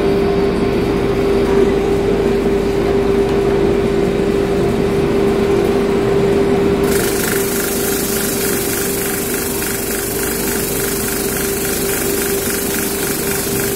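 Electric motor of a homemade sanding machine running, with a steady hum as it spins a wooden disc. About seven seconds in, a Windsor chair stick is pressed against the turning disc and a sanding hiss of wood on abrasive joins the hum.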